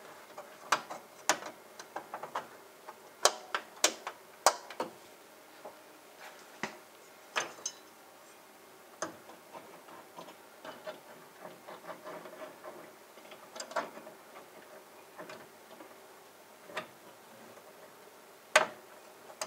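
Irregular clicks, taps and small knocks of hands fixing network cables and fittings into place inside a structured media enclosure.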